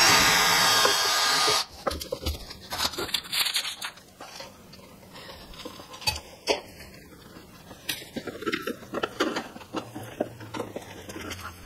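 A loud rushing hiss for under two seconds at the start, then scattered light clicks, taps and rustles as low-voltage wire is fed up behind a wall cabinet and handled.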